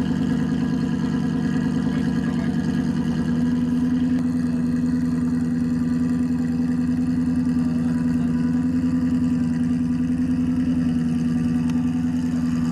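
Engine idling steadily, a constant low hum that steps up slightly in pitch and loudness about three seconds in.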